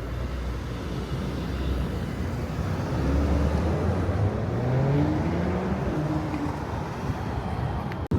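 Car engine and road noise while driving, the engine pitch rising as it speeds up around the middle, then cutting off suddenly near the end.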